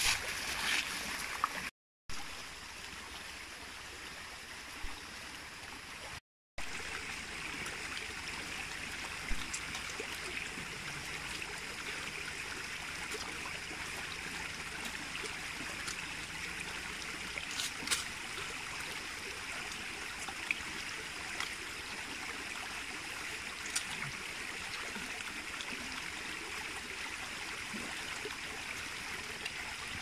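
Steady rushing noise like running water, with a few faint clicks scattered through it. The sound cuts out completely for a moment twice in the first seven seconds.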